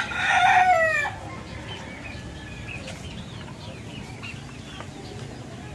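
The end of a rooster's crow: a loud drawn-out call that slides down in pitch and stops about a second in. After it there is a low, steady background with faint high chirps.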